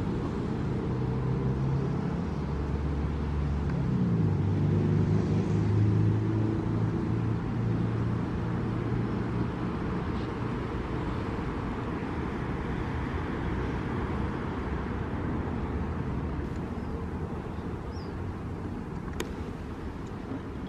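Low rumble of road traffic with a motor vehicle's engine hum, which shifts in pitch and swells about four to six seconds in, then eases toward the end.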